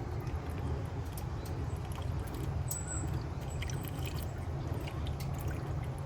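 Thin, watery engine flush pouring from its bottle into the engine's oil filler, a faint trickling with small ticks and drips over a steady low hum.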